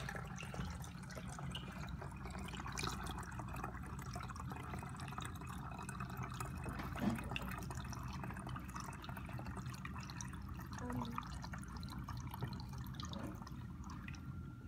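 Root beer poured from a jug through a plastic funnel into a bottle, a steady run and drip of liquid filling it, with a single knock about seven seconds in.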